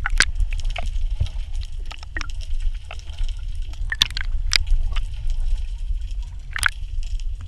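Underwater sound through a camera housing: a steady muffled low rumble of moving water, with scattered sharp clicks and pops, the loudest about four seconds in and again near the end.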